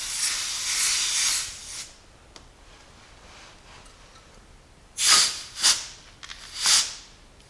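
Air hissing from a tire valve stem for about two seconds as a portable compressor's screw-on hose nozzle is unthreaded from the tire, inflated to about 30 PSI. A few seconds later come three short hisses of air as a tire pressure gauge is pressed onto the valve.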